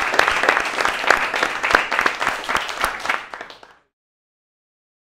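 Audience applauding, a dense patter of many hands clapping that thins out and cuts off about three and a half seconds in.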